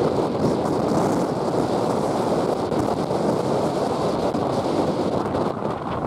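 Strong wind buffeting the microphone over the steady rush of rough North Sea surf breaking on the shore.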